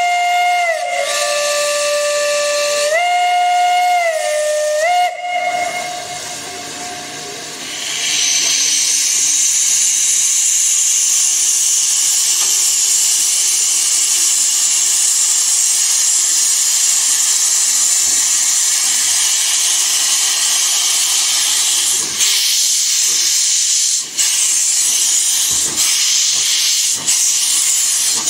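Steam locomotive's whistle blown for about six seconds, its pitch stepping up and down twice as the valve is worked. From about eight seconds in, a loud steady hiss of escaping steam follows from the open cylinder drain cocks as the locomotive starts the train away.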